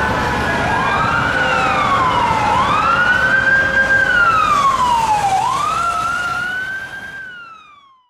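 Emergency-vehicle siren wailing, its pitch sweeping up and down about every two to three seconds, with a second, steadier siren tone slowly falling beneath it in the first few seconds. It fades out near the end.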